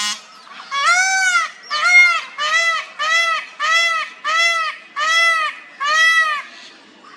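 Male peafowl (peacock) calling in a rapid series of about ten short, loud calls, roughly two a second, each rising and then falling in pitch.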